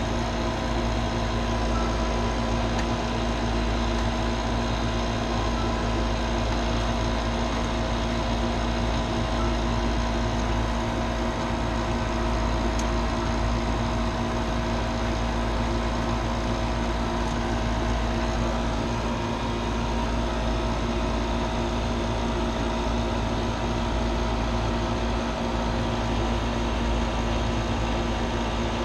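Refrigeration vacuum pump running steadily, evacuating a newly installed air-conditioning system's lines: an even mechanical hum with several steady tones.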